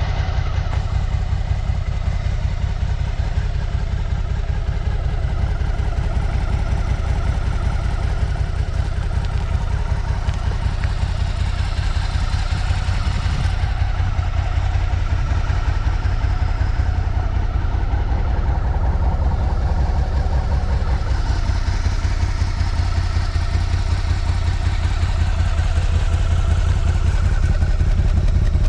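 2024 Suzuki SV650's 645 cc V-twin with its stock exhaust, idling steadily with an even low pulse.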